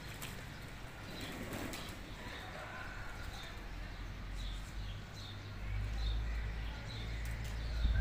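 Pigeons bathing in a shallow metal pan of water, splashing and flapping their wings. Short bird chirps repeat in the background, and a low rumble swells in the second half.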